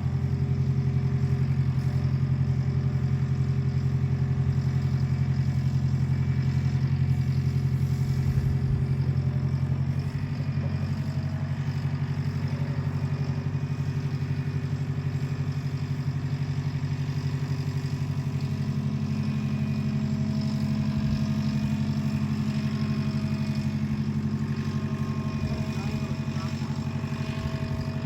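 An engine running steadily at a low, even speed, a little quieter from about ten seconds in.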